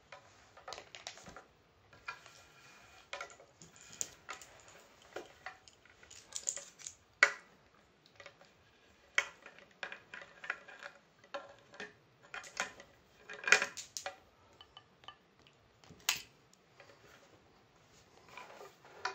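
Handling noise as a Rega RB251 tonearm is taken out and a Rega Planar 3 plinth is tipped up and lifted: irregular small metallic clinks and clicks, with three sharper knocks, about 7, 13 and 16 seconds in.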